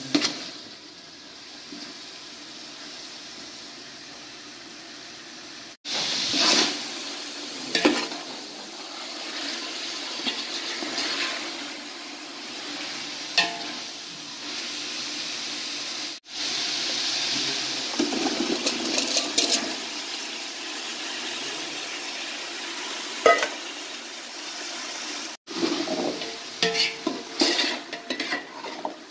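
Chicken frying in a large aluminium pot, a steady sizzle with the scrapes and clinks of a metal slotted spoon stirring against the pot. The sound breaks off suddenly three times, and near the end there is a busier run of clinks and knocks.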